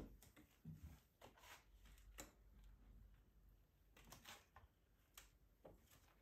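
Faint, irregular clicks and soft knocks from a mini stepper exercise machine as its footplates are pushed up and down.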